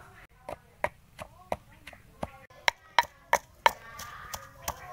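Wooden pestle pounding fresh green leaves in a clay mortar, a steady beat of about three knocks a second, each with a brief ring from the bowl. The knocks grow louder about halfway through.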